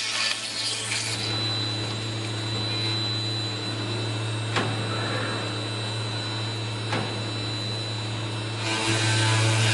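Routech OIKOS CNC beam-processing center running between cuts: a steady hum and whine from its large circular-saw spindle and drives, with two short clicks about four and a half and seven seconds in. The noise grows louder again near the end.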